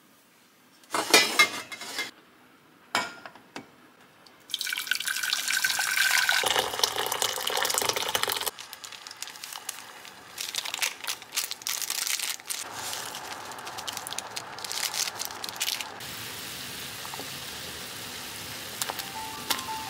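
Running water splashing into a kitchen sink, starting a few seconds in after a few short knocks. It is loudest at first, then uneven, then settles to a steadier, softer flow.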